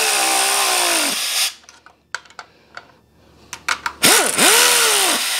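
Pneumatic air impact wrench run in two bursts, feathered low so its pitch sags and rises, snugging the exhaust up-pipe bolts. The first burst cuts off about a second and a half in; a few light metal clicks follow before the second burst starts about four seconds in.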